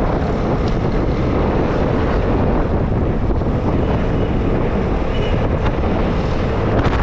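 Steady wind rush buffeting the microphone while riding a Vespa S125 scooter, with the scooter's single-cylinder four-stroke engine running steadily underneath at cruising speed.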